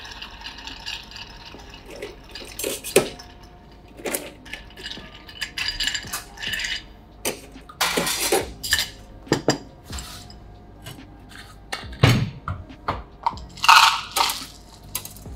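Bar spoon stirring ice in a glass mixing glass, a steady run of light clinks, then a series of separate clinks and knocks of metal bar tools and glass being handled to strain the cocktail.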